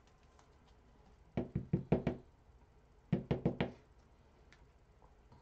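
Two quick series of knocks, about five each, a second apart.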